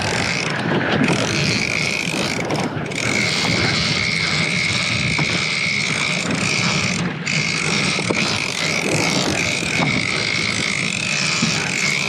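A big-game lever-drag fishing reel being cranked steadily, winding in line on a hooked striped marlin that is coming in fast. A steady high whine runs through it and breaks off briefly a few times, over a boat's engine and a rushing noise.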